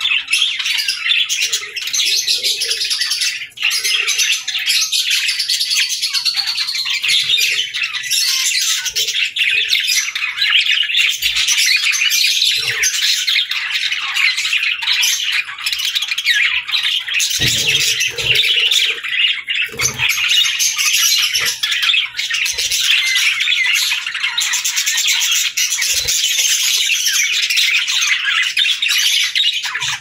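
Budgerigars chattering and warbling nonstop, a dense overlapping stream of high chirps and squawks from several birds.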